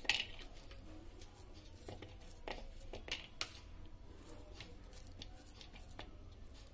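A knife slicing a peeled banana over a steel mixer-grinder jar, with faint, irregular clicks as the blade cuts through and the pieces drop onto the chopped nuts inside.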